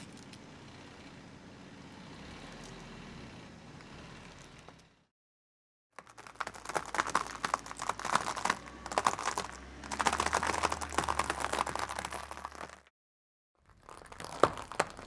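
Car tyre rolling slowly over a pile of dry coloured pasta, crushing it in a dense run of crackles and crunches that stops briefly and starts again near the end. Before that, for the first few seconds, a softer, even sound as the tyre presses down on a soft squishy ball.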